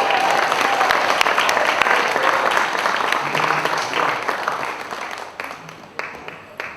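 Audience applauding after a song, a dense patter of clapping that gradually dies away to a few scattered claps near the end.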